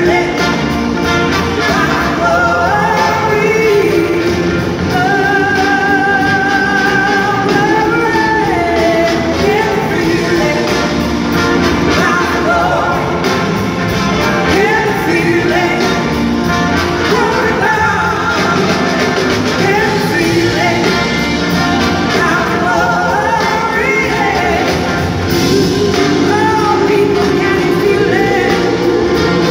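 Live blues-rock band playing at full volume: singing over electric guitars, bass, drums and keyboards, in a large hall.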